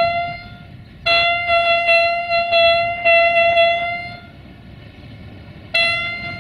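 Horn of an approaching Siemens Desiro diesel multiple unit sounding one steady, high single note in blasts: a short one at the start, a long one of about three seconds from about a second in, and another starting near the end.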